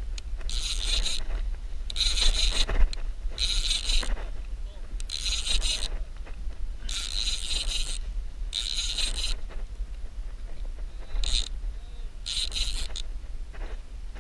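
Baitcasting reel cranked in short spurts, each a whir of about half a second, one every second or two: line being wound in on a hooked fish between pumps of the rod. Wind rumbles on the microphone throughout.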